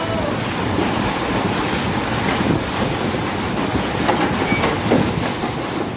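Coal pouring from a bunker chute into a truck body: a steady, dense rushing rattle with scattered knocks.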